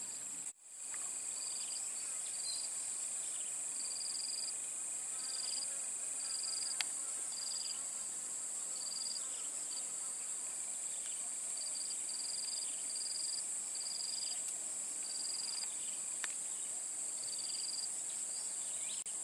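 Insects buzzing in a constant high-pitched drone, with shorter high chirps repeating about once a second over it.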